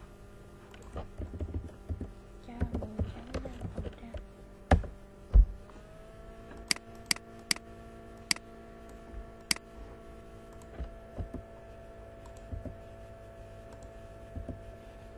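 Computer keyboard and mouse in use: scattered taps, two heavier thumps about five seconds in, then a run of five sharp clicks, over a steady hum.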